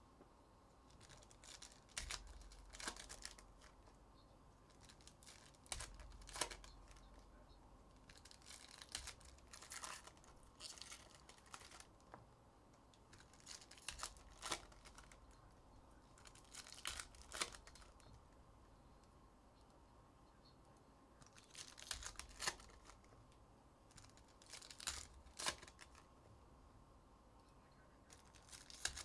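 Foil wrappers of 2023 Upper Deck Goodwin Champions trading-card packs being torn open and crinkled, in short crackly bursts every few seconds with quiet stretches between.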